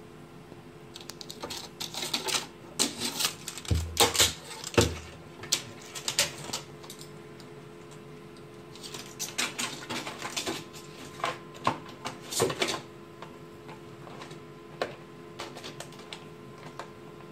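A cat rummaging in a wooden box among plastic packets: runs of quick clicks and crinkles as it paws and noses the packaging, with two low thumps about four and five seconds in.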